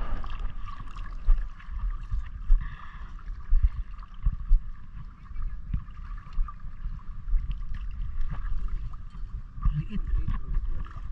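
Fishing net being hauled up out of seawater, with water splashing and dripping, scattered knocks of handling, and a steady high hum throughout.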